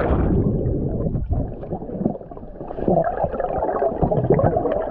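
Muffled underwater gurgling and bubbling, heard with the camera under the water after a jump into a pool; it dips about two seconds in and grows busier near the end.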